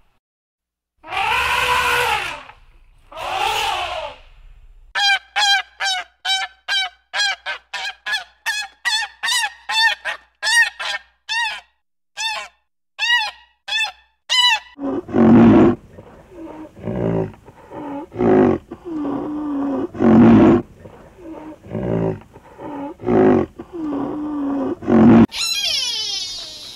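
Animal calls in three runs. First come two drawn-out calls whose pitch rises then falls. Then a quick series of short, higher calls follows, about two a second for roughly ten seconds. Last come deeper calls in an uneven string.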